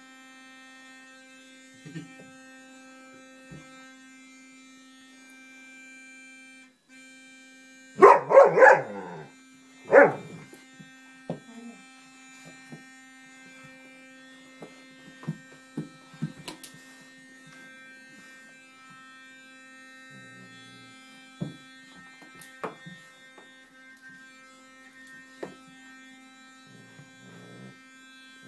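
An electric toothbrush buzzes steadily, with a brief cut-out about seven seconds in. A Rhodesian ridgeback gives a quick burst of loud barks about eight seconds in and another bark about ten seconds in, with scattered smaller yelps and clicks later.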